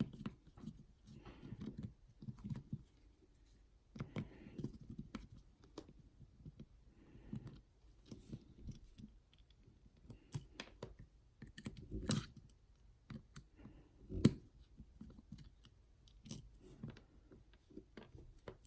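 Scattered small metallic clicks and handling noises of a pin-tumbler dimple lock cylinder and hand tools being worked, with two louder knocks about twelve and fourteen seconds in.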